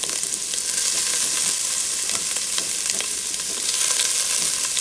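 Chopped garlic and diced red onion sizzling as they sauté in a stainless steel pot, a steady frying hiss dotted with small crackles.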